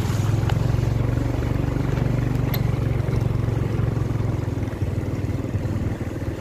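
Motorcycle engine running steadily at low speed on a rough dirt road, heard from the bike itself, with a couple of faint knocks.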